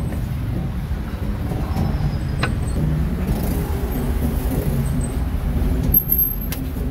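Steady low rumble of street traffic, with a few sharp knocks about two and a half seconds in and again near the end.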